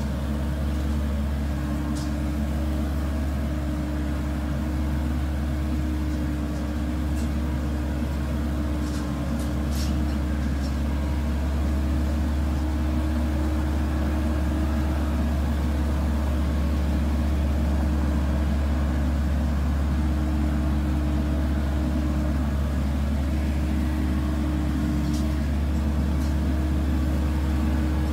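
An FMWORLD crawler rice combine harvester's diesel engine running steadily under way, a deep, even hum with a few faint light ticks.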